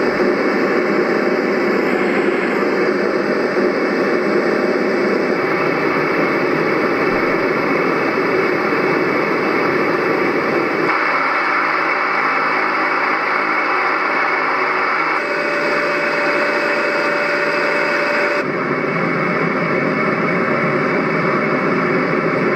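Recorded fan sounds from a Roffie white noise sound machine's speaker: a steady rushing hiss that switches abruptly to a different fan recording several times, about 11, 15 and 18 seconds in, one of them with a steady hum and a thin whine.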